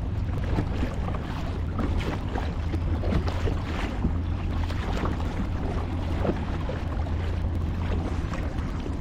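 Kayak paddling on harbour water: irregular paddle splashes and water lapping over a steady low rumble.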